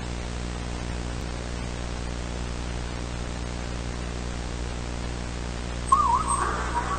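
Steady static hiss with a low hum under it. About six seconds in, a wavering tone sounds and music starts.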